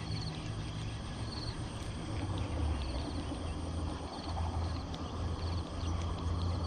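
Insects chirping in short, repeated trills every second or so, over a steady low rumble.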